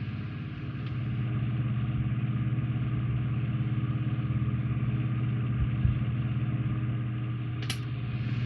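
A steady low machine hum runs throughout. Near the end there are a couple of light clicks of small metal tools and parts being handled.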